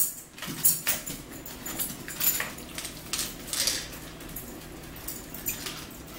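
Mealtime eating sounds: irregular short smacks and clicks of chewing close to the microphone, with an occasional spoon clink against a bowl.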